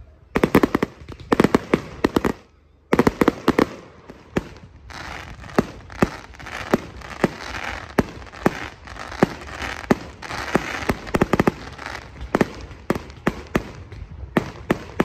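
Fireworks display: a rapid run of sharp bangs as rockets launch and shells burst, then a brief drop-out, then more shells bursting over a steady crackle with frequent bangs.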